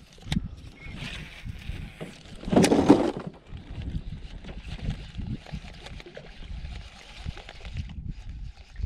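Small waves slapping and sloshing against the hull of an aluminum jon boat, mixed with handling noise from a baitcasting rod and reel. A louder burst of handling noise about two and a half seconds in lasts around half a second.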